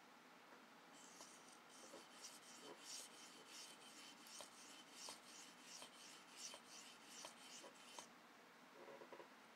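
Knife blade of a Leatherman E33L stroked by hand across an oiled sharpening stone, a quick run of faint, even scraping strokes from about a second in until near the end.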